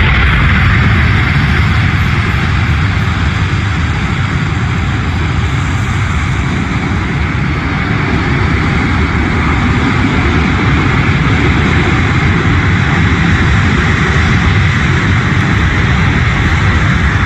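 Boeing C-17 Globemaster III's four turbofan engines running loud and steady during a short-field assault landing, easing slightly midway and then building again.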